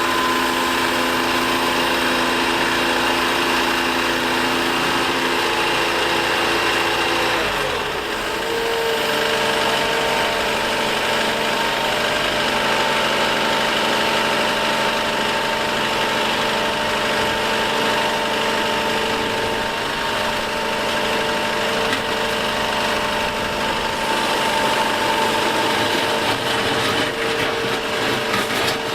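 Liebherr A 910 compact wheel excavator's diesel engine running steadily, its note shifting about seven seconds in. A run of short knocks comes near the end.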